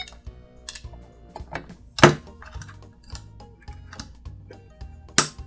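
Snap Circuits music IC playing its electronic tune faintly through the small speaker, amid light clicking and tapping from handling, with two sharp knocks, one about two seconds in and one near the end.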